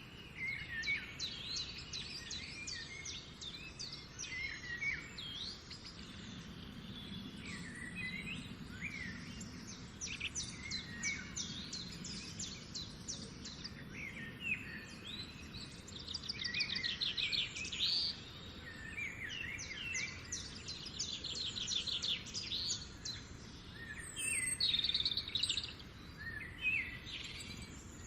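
Several birds singing and calling at once: overlapping chirps and fast rattling trills, with the loudest trills about halfway through and again near the end, over a faint steady background hum.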